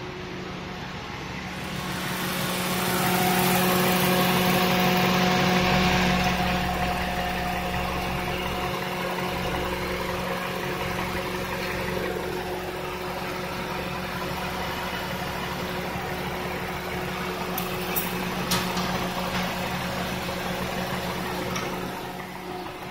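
Toyota 1ZZ-FE 1.8-litre VVT-i inline-four petrol engine idling steadily, heard up close in the open engine bay; it swells louder for a few seconds a few seconds in, and two light clicks come near the end.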